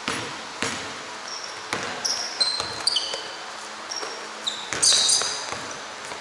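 Basketballs bouncing on an indoor court: irregular sharp thuds with a hall's echo, mixed with short high-pitched sneaker squeaks on the floor, loudest a little before five seconds in.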